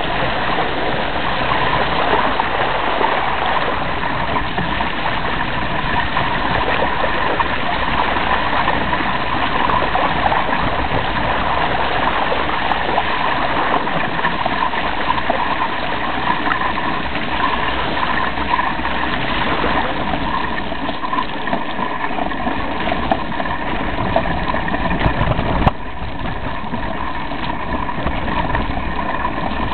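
Mountain bike riding over a rough, wet, muddy track: continuous rushing tyre noise with rattling and knocking, and one sharp knock about 26 seconds in, after which it goes a little quieter.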